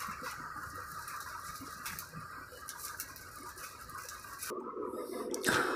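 Faint crinkling and light scratching of the plastic bags wrapped around a telescope tube as a hand handles them, over a steady room hum; the background changes abruptly near the end.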